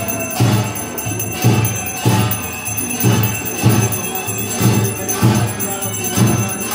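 Rhythmic percussion of deep drum beats about twice a second, under jingling, ringing metal bells, as played during an aarti.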